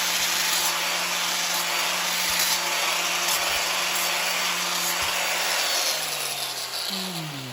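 Electric grinder running as it grinds the steel edge of an old spanner, then switched off about six seconds in, its pitch falling as it spins down.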